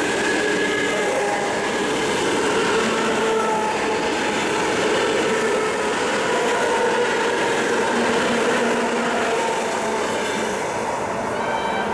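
ET2M electric multiple unit running past and away: steady rumble of wheels on the rails, with a faint whine from the motors.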